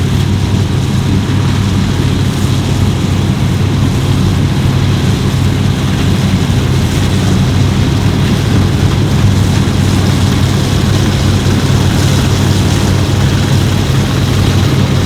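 Fendt Ideal 10T combine harvester running steadily, a constant heavy engine drone with a low hum and no change in speed.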